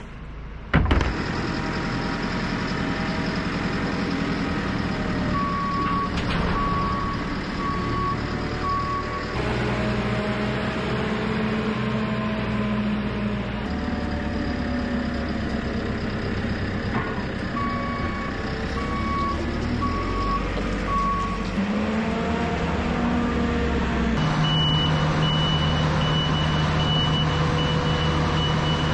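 Diesel engines of farm machinery, a JCB telehandler and a Claas Lexion 760 combine harvester, running and moving, with reversing alarms beeping in series of short tones: two runs of a lower beep midway, a higher beep near the end. A bang about a second in as a wheelie bin lid drops shut.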